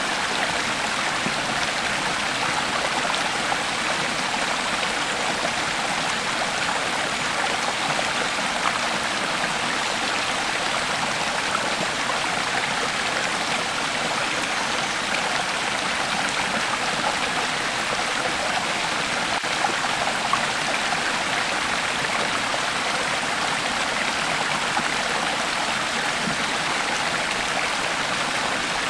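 Creek water flowing steadily over rocks, an even rushing and babbling.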